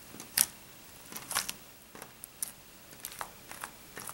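Borax slime being pressed and poked with fingertips against a table, making a series of irregular short squelching clicks and pops, the sharpest about half a second in.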